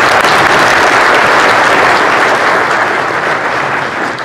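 Audience applauding steadily, thinning out near the end.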